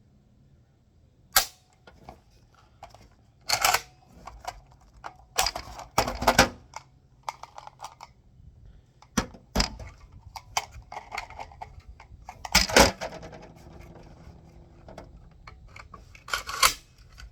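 Metallic clacks and clicks of a PSL rifle's action being worked by hand, in a string of separate sharp knocks and short rattling clusters. The rifle is not picking up the next round from the magazine.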